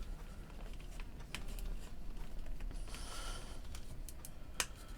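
Small sharp clicks and a short scrape as a tool works inside a Sennheiser HD202 headphone earcup to pry out the metal cable clip, with one louder click near the end.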